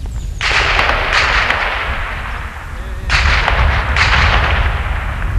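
Four pistol shots in two quick pairs, the shots in each pair less than a second apart and the pairs about two seconds apart. Each shot is followed by a long ringing echo.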